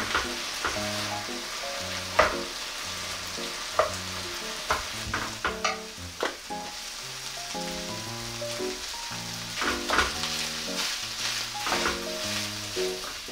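Kkakdugi and tuna fried rice sizzling in a hot pan as wooden spoons stir and scrape it, with sharp knocks of the spoons against the pan every few seconds. Light background music plays along.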